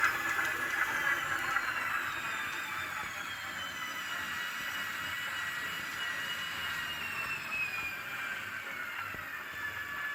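Sound decoder in a Minitrix N-scale E 75 electric locomotive, a Doehler & Haass SD10A, playing electric-locomotive running sound through the model's small speaker. It gives a hiss with several whining tones that slowly fall in pitch.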